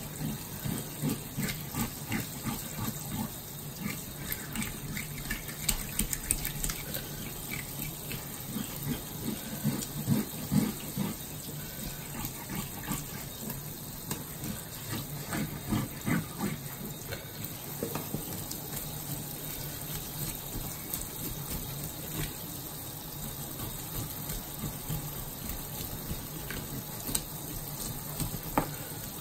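Kitchen faucet running water into a stainless steel sink over whole black bass, with irregular splashing and rubbing as gloved hands clean the fish under the stream, busier in the first half.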